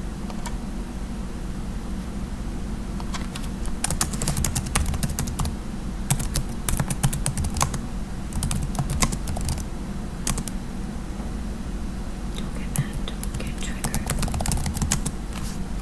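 Typing on a computer keyboard: irregular runs of key clicks starting a few seconds in, with short pauses between runs, over a steady low hum.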